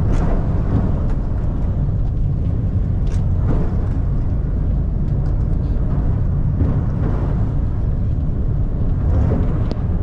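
Steady low rumble of a ship's engines and hull heard from inside the passenger cabin, with a few faint knocks.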